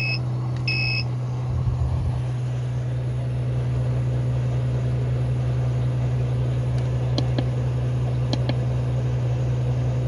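12 V RV air conditioner running with a steady low hum. Its control panel gives two short beeps in the first second as the fan speed is raised. The hum then grows a little louder.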